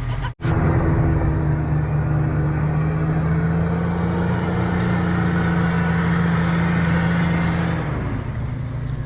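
Off-road truck engine held at steady high revs as it works through deep mud, easing off about eight seconds in.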